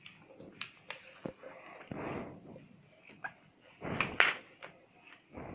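Sheet of A4 colour paper being handled and folded on a tabletop: rustling and crinkling with scattered sharp taps and clicks, loudest just after four seconds in.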